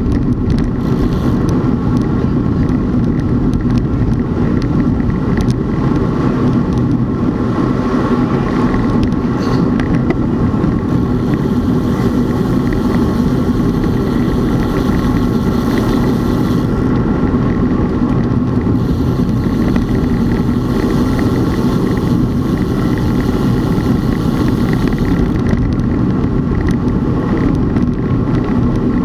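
Steady, unbroken drone of a moving vehicle under way, with a rush of wind noise over it.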